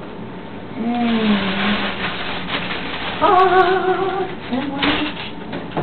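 Aluminium foil crinkling and rustling as a foil-wrapped sandwich is handled. Over it comes a person's wordless voice, first a short falling note and then a longer wavering one.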